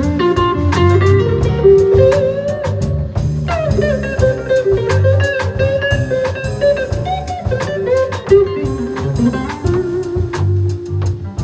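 Live blues band: an electric guitar plays a lead line of sustained, bent notes over bass and drums.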